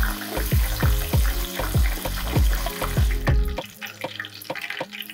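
Battered oysters deep-frying in hot oil, a steady sizzle, under background music with a low repeating beat. About three and a half seconds in, the sizzle and the music drop away, leaving a few faint clicks.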